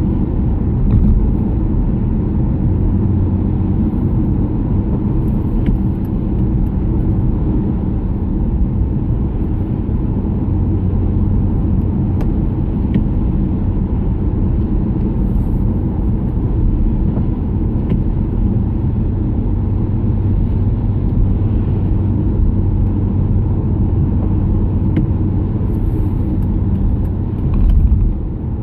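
Steady low rumble of a car heard from inside the cabin at motorway speed: engine and tyres running on a wet road in light rain. There is a brief swell in loudness near the end.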